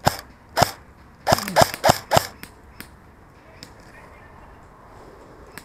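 Airsoft guns firing single shots: about six sharp cracks in quick succession in the first two seconds, then a few fainter snaps.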